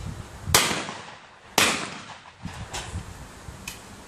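Two shotgun shots about a second apart, a skeet double, each a sharp report with a short ringing tail.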